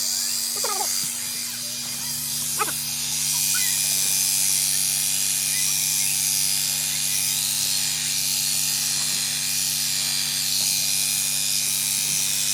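Electric sheep-shearing clippers running steadily, a loud buzz of the motor under a dense high-pitched chatter from the cutting blades. About two seconds in the note shifts and the sound grows louder.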